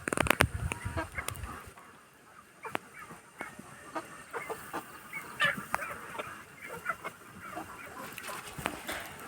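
Flock of Kuroiler chickens clucking and calling in short, scattered calls, after a loud burst of knocks and rustling in the first second and a half.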